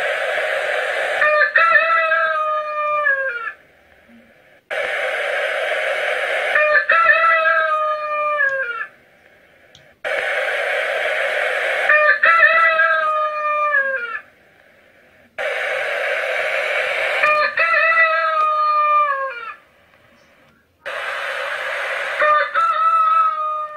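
Rooster crowing five times, about every five seconds, each crow a rough opening followed by a long falling final note. The crows are identical, the same recording repeated.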